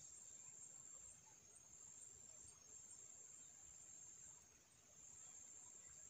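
Faint, steady high-pitched insect drone.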